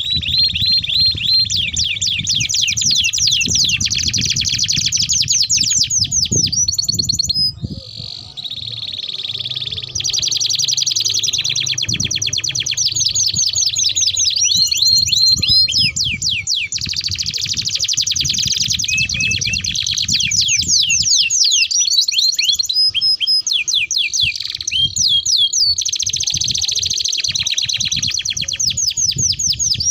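Two domestic canaries singing long rolling trills: fast runs of repeated notes, one roll passing into the next, with a short pause about eight seconds in. A low rumble runs underneath.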